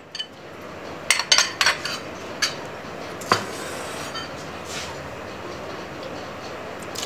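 Frozen peach pieces tipped from a plate clattering into a plastic blender jar: a quick run of knocks and clinks about a second in, then a few single clinks.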